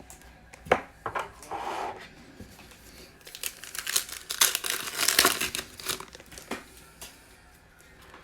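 Foil wrapper of a Prizm football card pack being torn open and crinkled, with the densest crinkling from about three to six seconds in and a sharp click near the start.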